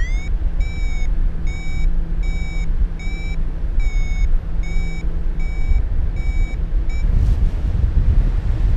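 Flight variometer beeping about twice a second, short high chirps of the kind that signal the wing is climbing in lift. The beeps stop about seven seconds in and start again near the end, sliding up in pitch. Underneath runs a loud low rumble.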